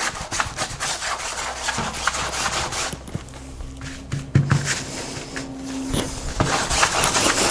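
Flat paintbrush scrubbing acrylic paint onto a canvas: a dry, rasping rub in quick repeated strokes. It goes quieter about three seconds in, then the scrubbing comes back louder near the end.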